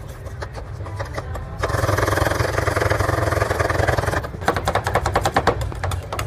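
Metal spatulas chopping fast on the steel cold plate of a rolled ("fried") ice cream pan, mashing strawberries into the freezing cream base. It makes a dense clatter for a couple of seconds in the middle, then breaks into rapid, evenly spaced taps over a low steady hum.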